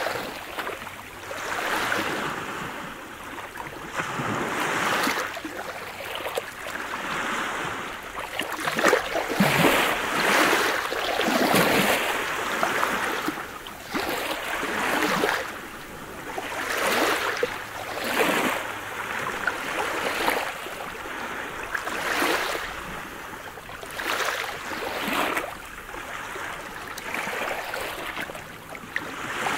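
Small waves of a calm sea breaking and washing up onto a pebble beach. Each wave is a swell of rushing, hissing water that rises and fades, coming irregularly every two to three seconds.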